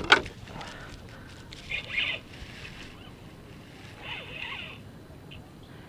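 A hooked redfish splashing at the surface in two short bursts, about two seconds in and again about four seconds in, after a sharp knock at the start.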